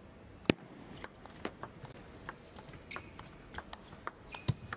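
Table tennis rally: a plastic ball struck by rubber-covered bats and bouncing on the table, giving a string of sharp clicks at an uneven pace. The loudest crack comes about half a second in, on the serve, and a deeper thump comes near the end.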